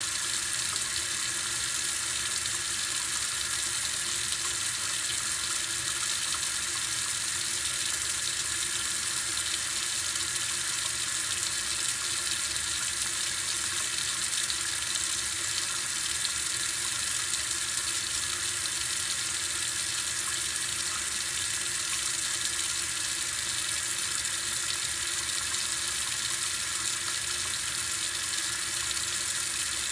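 Kitchen sink tap running steadily, water pouring into the sink with an even hiss.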